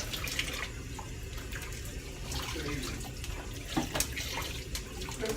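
Kitchen faucet running into a sink during hand dishwashing, with a few sharp clinks of dishes and cutlery, most about four seconds in.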